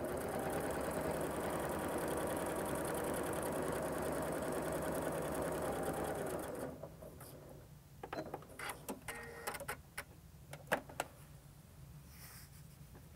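Electric sewing machine stitching steadily through a leatherlike fabric under a non-stick resin presser foot, stopping after about six and a half seconds. Then a scatter of light clicks and rustles as the sewn fabric is handled and drawn out from under the foot.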